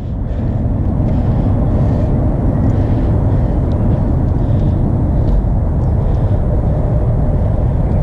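Steady low rumble of a BMX bike's tyres rolling over skatepark concrete, mixed with wind on the microphone, with a few faint ticks.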